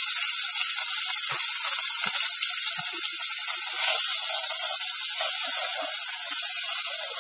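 Boiled onion paste sizzling in hot oil in a deep pot, a steady hiss as it is stirred with a wooden spatula.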